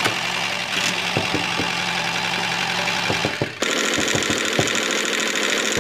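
A small motor running steadily, with a faint fast knocking. Its sound changes abruptly about three and a half seconds in.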